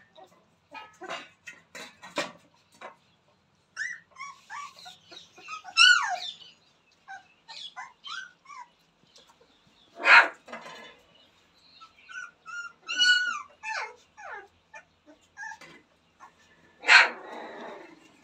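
Rottweiler puppies whining and yelping in short, high cries that fall in pitch. There are a few louder sharp yaps, about two seconds in, about ten seconds in and near the end, and light clicks as they jostle at a feeding bowl.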